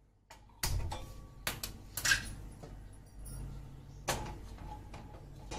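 Several sharp knocks and clatters of things being handled in a kitchen, the one about two seconds in ringing briefly, over a low steady hum.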